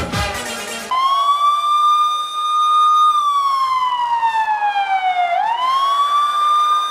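Background music cuts off about a second in and a wailing siren sound effect starts: a single tone that holds high, slides slowly down, then swoops quickly back up and holds.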